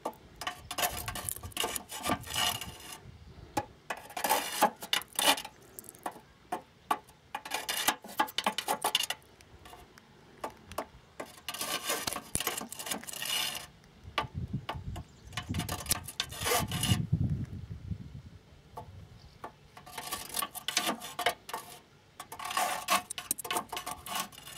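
A ribbed steel rod scraping and grating against the inside of hollow clay honeycomb blocks, in repeated short bouts with pauses between. It is being pushed down into the cavities to probe whether the bed joint between the courses is filled with foam.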